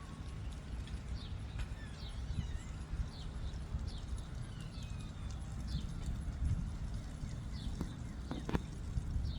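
Birds chirping: many short, high, falling chirps, over a low steady outdoor rumble, with a sharp knock or two near the end. The siren is not sounding.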